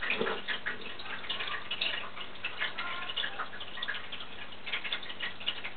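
Faint, irregular small ticks and light rustles over quiet room tone.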